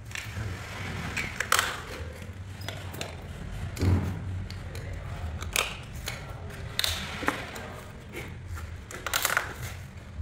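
Scattered clicks and knocks of plastic tile-leveling clips and wedges being set into the joints of large glossy porcelain floor tiles and tightened with leveling pliers, over a low steady hum.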